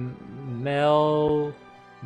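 A man's voice holds one drawn-out syllable at a steady pitch for about a second, then cuts off, over quiet background music.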